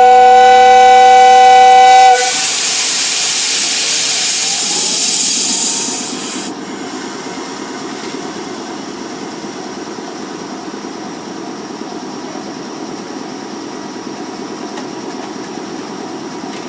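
Railway snowplow train's horn sounding one loud two-note chord for about two seconds as it sets off, followed by a loud hiss lasting about four seconds. After that the train's steady low rumble as it moves away.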